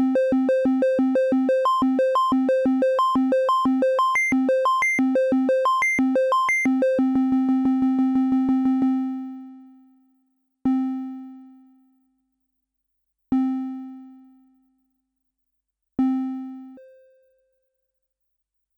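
Elektron Monomachine synthesizer arpeggiator playing fast, evenly spaced notes that leap up and down across octaves. About seven seconds in it turns into a rapid stutter on one low note, then three single low notes ring out and fade a few seconds apart, followed by one short higher note.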